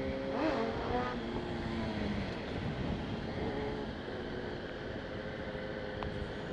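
Yamaha R1 sport bike's inline-four engine running under a rider on the road, its note falling over the first couple of seconds as the throttle eases off, then settling into a quieter steady cruise. Wind and road noise run underneath.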